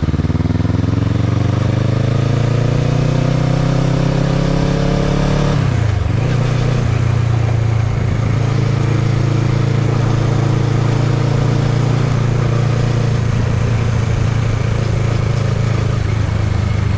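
Kawasaki ER-6n's parallel-twin engine pulling hard with rising revs, then a quick dip in pitch at a gear change about six seconds in, after which it runs at steady revs, cruising.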